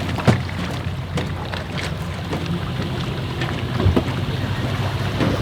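Wind on the microphone over a steady low hum, with two sharp knocks, one about a third of a second in and one just before four seconds.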